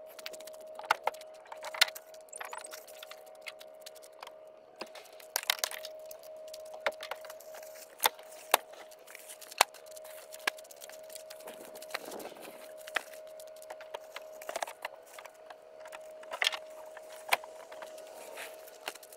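Plastic-wrapped bundles of foam insulation board being handled and stacked off a pickup bed: scattered sharp knocks, clicks and crackles of the wrap and foam, over a steady faint whine.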